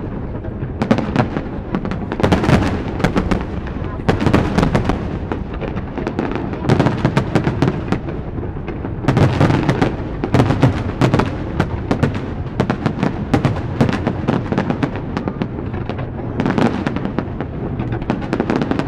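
Aerial firework shells bursting in a dense barrage: rapid strings of sharp bangs and crackle that come in waves every two or three seconds, over a continuous low rumble of booms.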